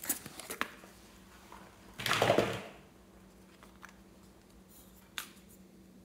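Close handling noises: a few light clicks, then a short, loud rustling scrape about two seconds in, and a single click about five seconds in. They come from hands rummaging in a fabric-and-plastic pencil case and handling a small plastic paint bottle.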